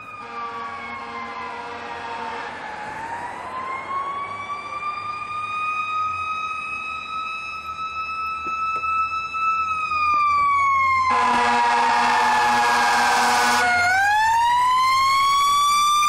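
Fire rescue truck's siren wailing in slow falling-and-rising sweeps, getting steadily louder as the truck approaches. Two long air horn blasts sound over it, one at the start and a louder one about two-thirds of the way through.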